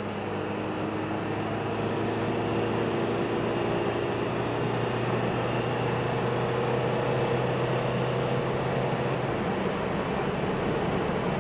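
Mitsubishi L200 2.4 DI-D four-cylinder turbodiesel pulling hard under full acceleration at around 3,000 rpm, heard inside the cabin with road and wind noise. The pitch creeps up slowly, then drops at an automatic upshift near the end.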